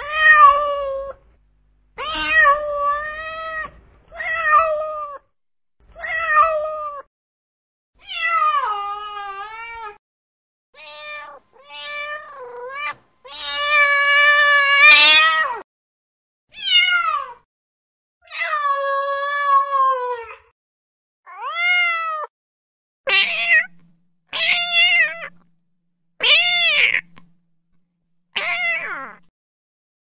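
Domestic cat meowing: about fifteen separate meows with short silences between them, varying in length and pitch. A long drawn-out meow comes about halfway through, and shorter, sharper meows follow near the end.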